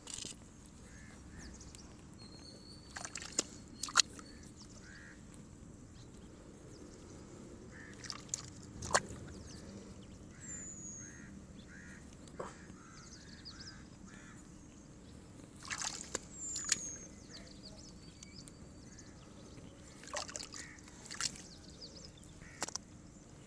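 Hands working wet mud in a water-filled planting pit: scattered short sloshing and squelching splashes. Birds chirp faintly in the background, with a couple of short falling whistles.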